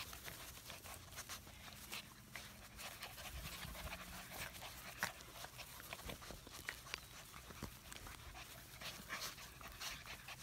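Pyredoodle puppies panting faintly as they play in the grass, with scattered small rustles and clicks.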